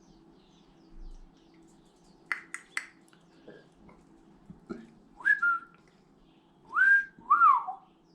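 Three sharp clicks, then three clear whistled notes toward the end: the first rises and settles lower, the second rises and holds, the last falls away. A faint steady low hum runs under them.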